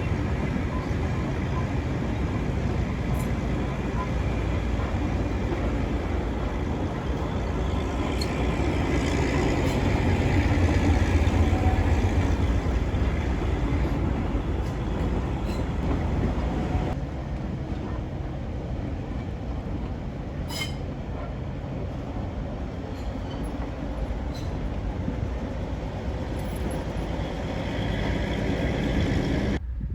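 A train running on a heritage line: a steady rumble of wheels and running gear on the rails that swells about ten seconds in and eases a little after the middle, with a few sharp clicks later.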